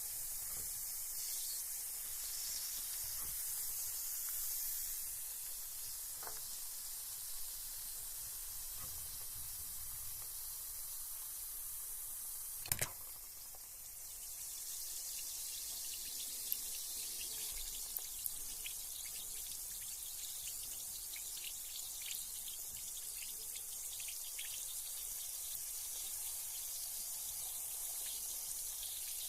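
Carbonated bath bomb fizzing in water: a steady high hiss with many tiny pops and crackles. A single sharp knock or splash about 13 seconds in.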